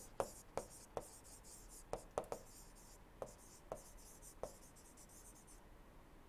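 Stylus writing on a tablet screen: faint, sharp taps and light scratching strokes, about ten taps that stop about four and a half seconds in.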